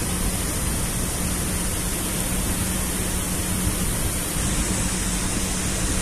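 Steady hiss-like background noise with a faint low hum, no distinct events.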